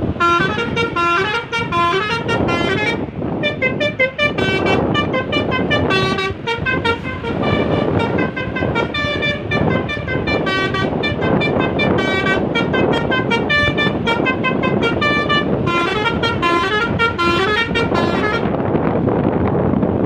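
Basuri V3 telolet horn on a tour bus playing a melodic tune of quick stepping notes that rise and fall, in phrases with short breaks, stopping about a second and a half before the end. Bus engine and road noise run underneath.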